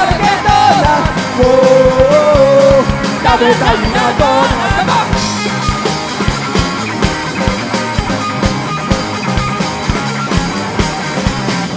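Live rock band playing loud: electric guitars through amplifiers, bass and drums, with a steady beat. A wavering melody line rides on top for the first few seconds, after which the band plays on without it.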